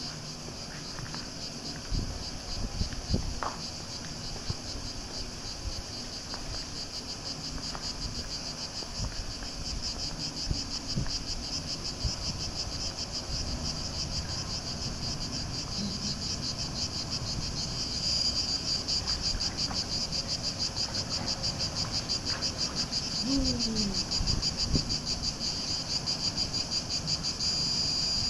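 Cicadas singing in a steady, rapidly pulsing high drone that grows louder from about halfway through.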